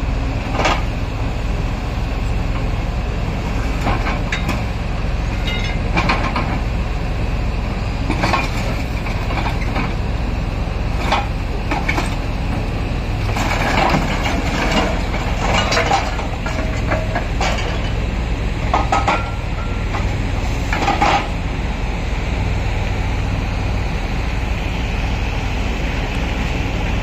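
Kobelco SK140 excavator's diesel engine running steadily, with repeated clanks and knocks as the hydraulic grab bites into and shifts rubble, most frequent about halfway through.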